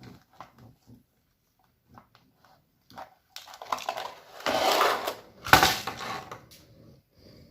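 Slime being handled: soft sticky clicks and pops for the first few seconds, then about halfway through two loud squelching, crackling presses before it settles again.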